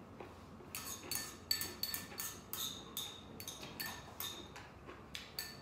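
Eating utensils clinking repeatedly against a bowl: a quick, irregular series of sharp clinks with a short high ring, starting just under a second in, roughly three a second.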